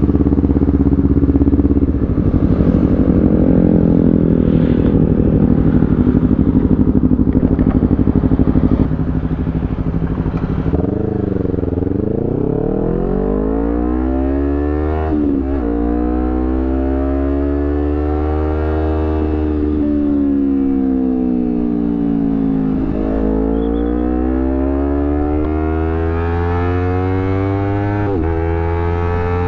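Honda CBR250RR's parallel-twin engine running through a Villan Z2 carbon aftermarket exhaust while riding: steady and loudest for the first several seconds, then the revs climb and fall in long sweeps, with short breaks in the note at gear changes.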